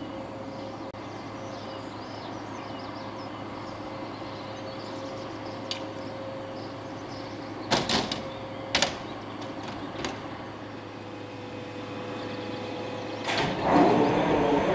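Irish Rail 071 Class diesel locomotive standing at the platform with its engine idling in a steady hum. A few sharp knocks come around eight seconds in, and near the end the steady tone gives way to a louder, rougher sound.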